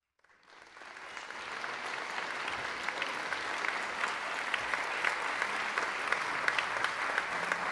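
Audience applauding. The clapping swells up from silence over the first two seconds or so, then carries on as steady, dense applause.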